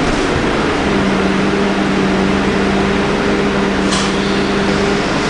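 Cabin noise inside a Scania K310UD double-decker bus: the steady drone of its Scania DC9 five-cylinder diesel and air-conditioning, with a steady hum that sets in about a second in. A brief click comes about four seconds in.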